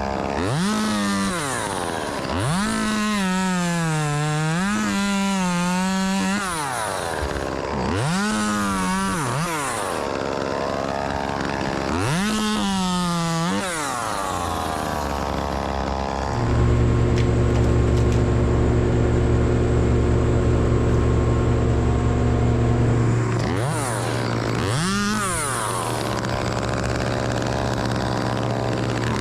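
Chainsaw revving up and back down in a series of short bursts, one held for a few seconds with its pitch sagging and wobbling under the load of a cut. About halfway through, a steady, louder low engine drone runs for about six seconds and then stops.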